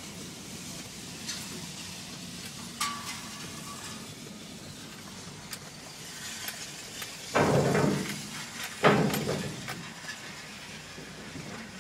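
Truck cab driving slowly over a rough scrapyard road: steady engine and road noise with scattered metallic clanks, one ringing briefly. Two loud crashes about a second and a half apart in the second half stand out above the rest.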